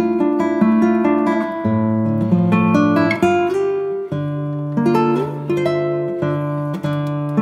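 Background music: an acoustic guitar playing a run of plucked and strummed notes and chords.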